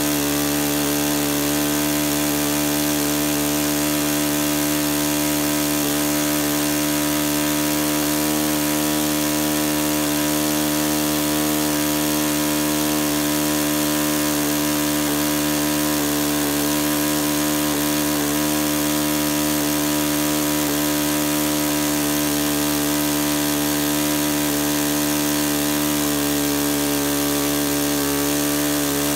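Saito FA-62B four-stroke glow engine and its propeller running steadily at full throttle, around 8,700 to 9,000 rpm. The high-speed needle valve is being leaned to peak rpm and past it, then backed out to a rich setting a few hundred rpm below peak. The pitch shifts slightly near the end as the mixture is richened.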